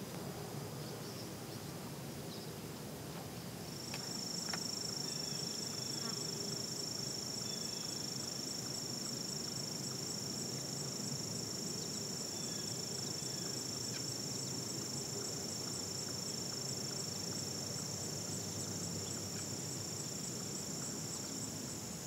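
A high, continuous insect trill made of very fast fine pulses, which jumps to become the loudest sound about four seconds in and then holds steady, over a low outdoor background rumble.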